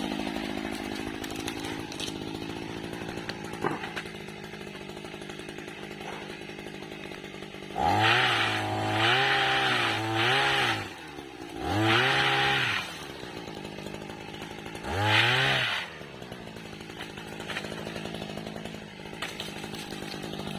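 Small engine of a motorized oil palm pole pruner running at idle, revved up in short bursts three or four times, the pitch rising and falling with each burst.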